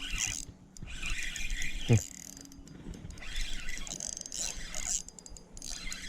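Fishing reel being cranked in short spells, its gears giving a quick clicking whir, with a single sharp thump about two seconds in.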